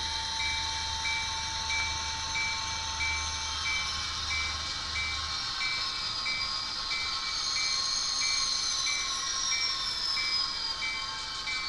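Soundtraxx Econami sound decoder in an N scale Bachmann GP40 model locomotive playing diesel locomotive sounds through its small speaker. A short tone repeats about one and a half times a second over high whining tones that slowly fall in pitch, and a low hum stops about halfway through.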